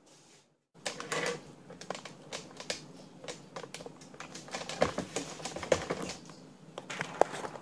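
A run of irregular light clicks and taps with a soft rustle under them. A few sharper knocks come near the middle and near the end.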